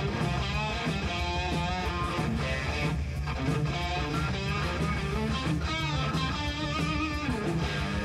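Rock band playing live, led by an electric guitar whose notes waver and bend over a steady low end.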